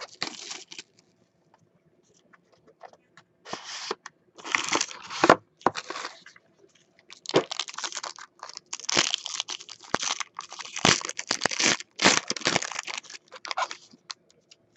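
A foil-wrapped trading-card pack being torn open and crinkled by hand: a run of short ripping and rustling noises, a few scattered ones at first, then near-continuous through the second half.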